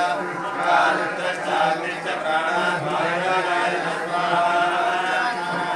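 Male voices chanting Sanskrit mantras together for a homa fire ritual, a continuous chant without pauses.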